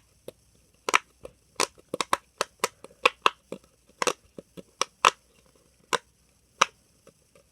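A hard plastic shell puppet fidget toy clacking as its handle is worked, about twenty sharp, irregular clicks that thin out toward the end.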